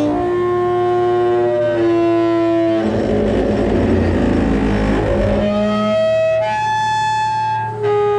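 Long squealing, groaning tones of metal sliding on metal as the boat trailer is dragged up the tilted rollback bed, the pitch jumping to a new note every second or two, with a rough scraping stretch in the middle.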